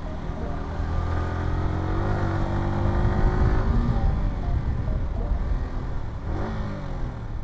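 Yamaha R15 V4's single-cylinder engine running as the motorcycle rides through traffic, its pitch rising about two seconds in as it accelerates, then holding steady before another brief rise and fall near the end.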